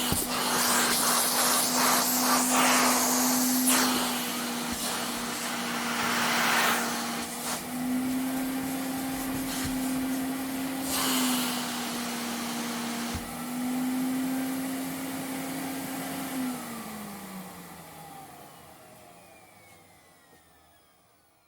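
Vacuum cleaner running with a steady motor hum and rushing air that surges and eases. About sixteen seconds in it is switched off, and the motor's pitch falls as it winds down and fades out.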